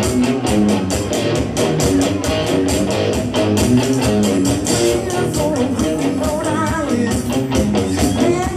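Live rock band playing: guitars and bass over a driving drum beat, with little or no singing.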